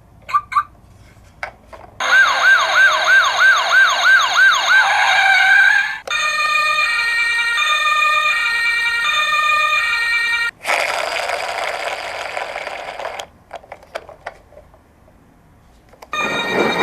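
Emergency-vehicle siren sounds. First comes a fast yelp siren sweeping up and down about two to three times a second, which glides up into a wail. Then a high-low two-tone siren like a Japanese ambulance's. After the sirens comes a burst of noise about 11 seconds in, and another loud noisy sound starts near the end.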